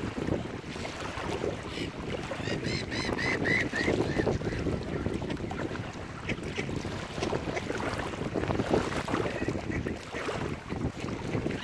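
Wind buffeting the microphone over water sounds from the shore. About two and a half seconds in, a bird gives a quick run of five or six short, high calls.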